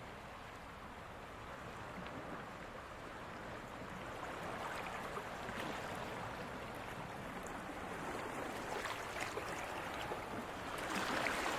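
Small waves washing in over a rippled sandy shore, a steady rush of water that grows louder toward the end.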